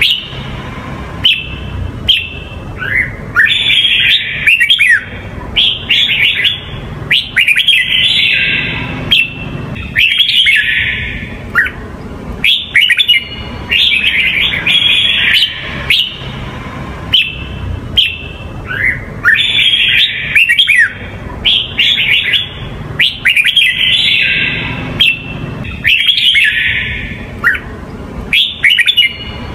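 Red-whiskered bulbul singing: short, rapid, whistled phrases with quick pitch glides, repeated every second or two.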